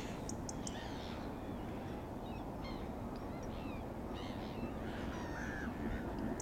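A flock of gulls and ducks calling: many short, harsh calls scattered and overlapping, over a steady low background rumble.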